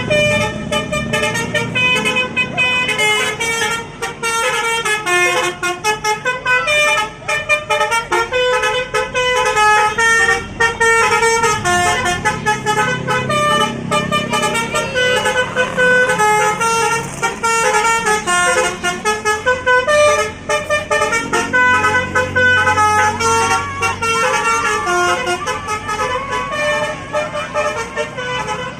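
Bus 'telolet' Basuri musical air horn playing a fast tune of short notes at several different pitches, over the low rumble of the bus.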